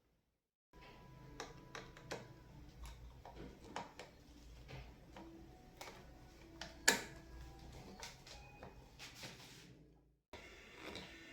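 Scattered light clicks and taps of hands and a screwdriver handling a light switch during reassembly, with one sharp click about seven seconds in.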